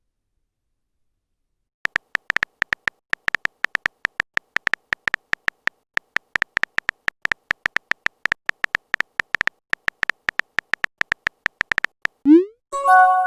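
Smartphone keyboard typing clicks, rapid and irregular, for about ten seconds after a short silence, then near the end a short rising swoosh and a bright chime of a message sent or received.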